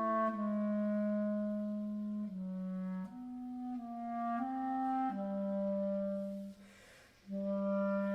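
Background music: a solo wind instrument playing a slow melody of long held notes, with a short pause about seven seconds in.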